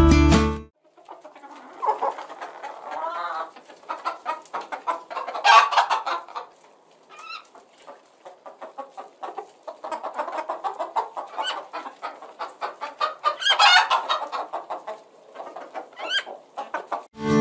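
Chickens clucking in quick runs of short calls, with louder squawks about five and a half and fourteen seconds in. Acoustic guitar music cuts off just under a second in and comes back at the very end.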